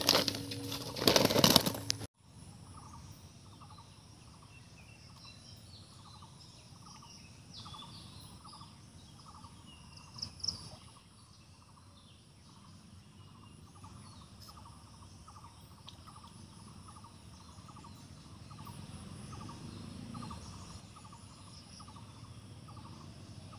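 Outdoor pond-side ambience with a regular repeating animal call, about two pulses a second, and scattered bird chirps. It opens with a couple of seconds of loud close rustling and handling noise that cuts off abruptly. A single short sharp sound comes about ten seconds in.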